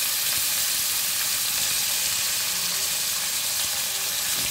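Chopped tomatoes and cumin seeds sizzling steadily in hot mustard oil in a kadai, just after the tomatoes went in.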